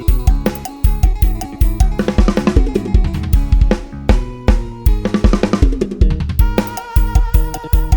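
Lam sing dance music played on a sampled Addictive Drums 2 drum kit: a steady kick-drum beat with snare and cymbal crashes, over bass and melody lines.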